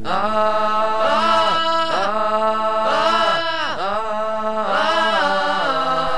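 Music: a slow song with long, sliding sung notes over a steady held drone, without a beat.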